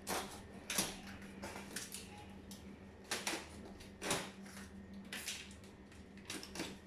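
Plastic packing straps being cut and pulled off a refrigerator's cardboard carton: about six short, sharp scrapes and snaps spread over several seconds, with a faint low hum underneath.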